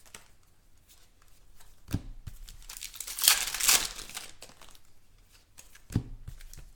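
Wrapper of a 2016 Contenders football card pack being torn open and crinkled, with the loudest rip about three seconds in. There are single sharp knocks near two seconds and near six seconds.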